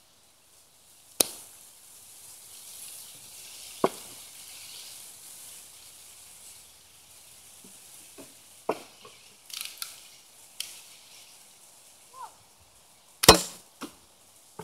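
Red Ryder lever-action BB gun shooting at bottles: a string of sharp snaps and clicks a few seconds apart, with a few coming closer together after the middle and the loudest snap a little before the end.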